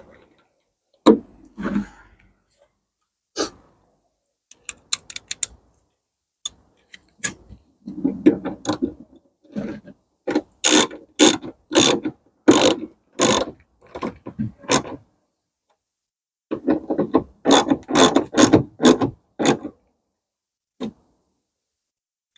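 Hand ratchet clicking in runs of quick strokes, about two a second with short pauses between runs, as a replacement door lock is fastened into the car door.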